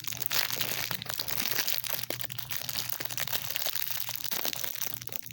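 Plastic wrapper crinkling as a small mochi squishy toy is unwrapped by hand: a dense, irregular stream of small crackles.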